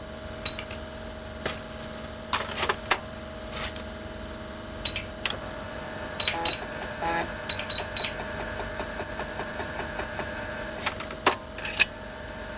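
Computer keyboard being typed on in irregular bursts of key clicks, some keystrokes answered by a short high beep from the computer, over a steady electrical hum.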